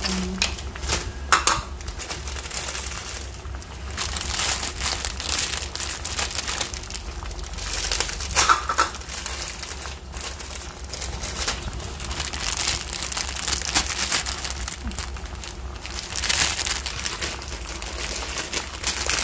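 A pot of pork-bone broth heating toward the boil, crackling and hissing unevenly, the sound of a pot of liquid coming up to heat. A low steady hum runs underneath.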